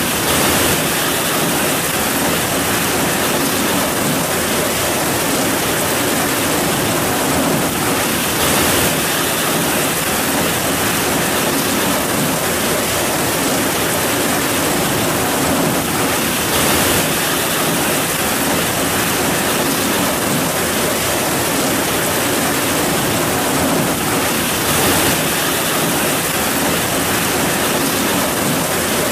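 Heavy rain falling steadily: a dense, even hiss that swells briefly a few times.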